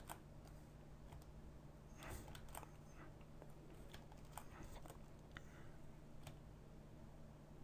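Near silence: a low steady hum with a few faint, scattered clicks of computer keys being pressed.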